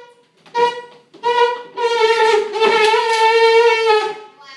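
Elephant-like trumpeting noises: two short honks, then a long blast of about two seconds, held at a steady pitch.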